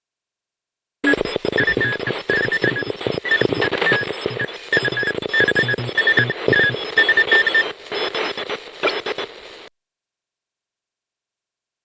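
Electronic Morse code sound effect: short high beeps in dot-and-dash runs over crackling static and rapid clicking. It starts about a second in and cuts off suddenly a couple of seconds before the end.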